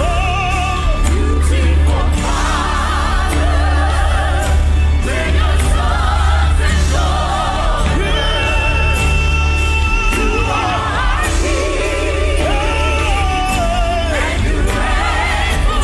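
Live gospel worship music: several voices sing long, gliding lines over a band with a steady deep bass.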